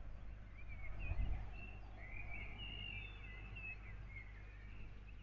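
Small birds chirping and warbling, most busily in the middle, over a steady low rumble, with a short low thump about a second in.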